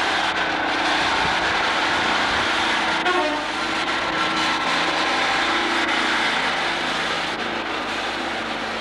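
British Rail Sprinter diesel multiple unit running past at close range: a steady engine drone mixed with rolling noise, easing off a little near the end as it draws away.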